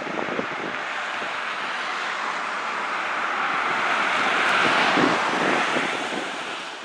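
Street traffic: cars driving past, a steady rush of tyre and engine noise that swells to a peak about five seconds in, then dies away near the end.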